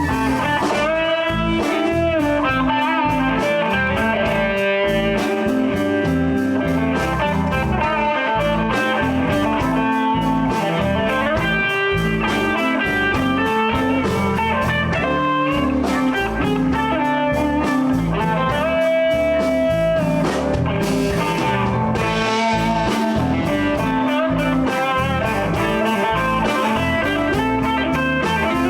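Live blues band playing an instrumental passage with no vocals: electric guitar lines with bent notes over bass and drums.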